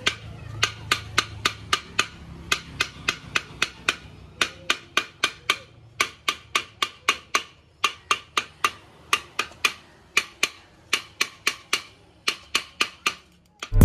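Rapid hammer taps on the rim of an old aluminium pressure cooker, about three a second, in runs of several with short pauses. The mouth of the cooker is being knocked back into shape so that the lid seals and steam stops escaping at the sides.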